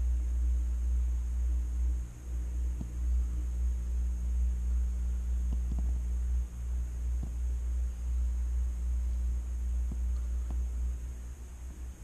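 A steady low hum that dips briefly a few times, with a few faint ticks over it.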